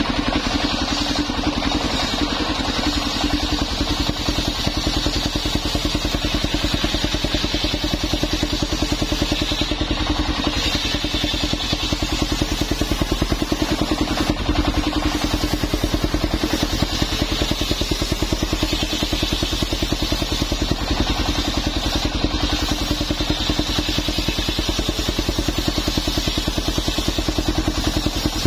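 A portable circular sawmill's engine running steadily with a fast, even pulse, belt-driving the circular saw blade as it rips a long plank from old coconut wood. A hiss from the cutting swells and fades over the engine.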